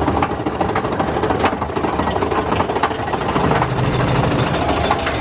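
Big Thunder Mountain Railroad mine-train roller coaster clattering along its track, a dense, rapid rattle over a steady rumble, heard from a seat on the moving train.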